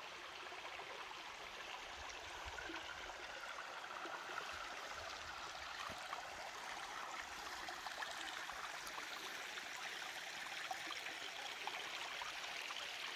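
Shallow forest stream running steadily over stones and leaf litter, a continuous rush of water that grows slightly louder toward the end.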